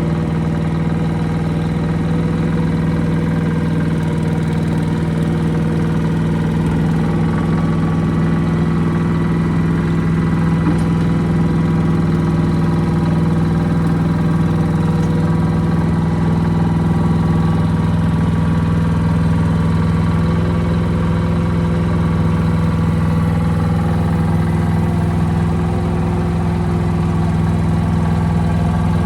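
Small diesel engine of a Yanmar mini excavator running at a steady speed, holding one even pitch with no revving.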